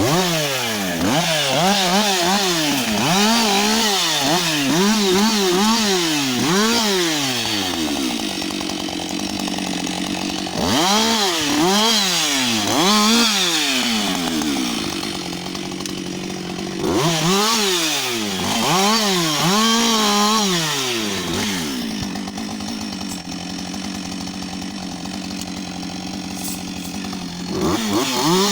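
Husqvarna 560 XP two-stroke chainsaw revved up and down in repeated quick swells, in three long spells, dropping back to a steady idle between them and revving again near the end.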